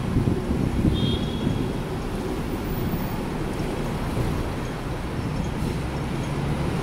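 Hong Kong double-decker tram running slowly along its street tracks, heard from the upper deck: a steady low rumble with wind. A brief high tone sounds about a second in.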